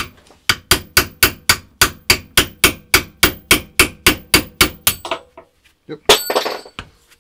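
Hammer striking a steel pin punch in a fast, even series of blows, about four a second, to drive a punch that is stuck in the gas block's pin hole out of a Heckler & Koch MR308 rifle. The blows stop about five seconds in. About a second later comes a short ringing metallic clink as the stuck punch comes free.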